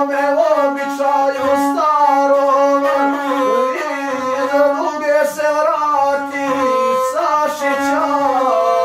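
Gusle, the single-string bowed folk instrument of the Balkans, played with a bow while the guslar sings along with it; a voice with wavering, bending pitch rises over a steady bowed note.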